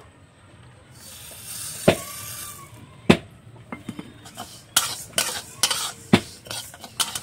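Mung dal being dry-roasted in a dry karai (wok): a metal spatula stirring and scraping the lentils around the pan, with a few sharp knocks of the spatula on the metal. A hiss runs for a couple of seconds about a second in, and the scraping strokes come thick and fast in the second half.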